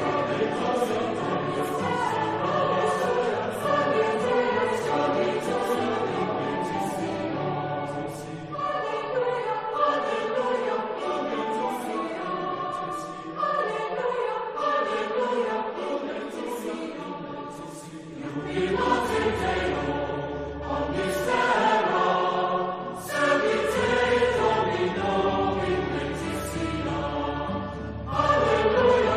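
A choir singing a sacred piece in long phrases, with short breaks between them.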